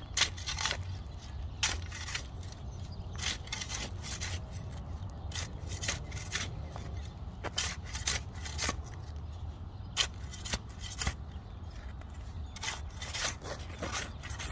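Digging around an evergreen tree's root ball to free the roots: irregular scrapes and sharp chops into soil and roots, with a steady low rumble underneath.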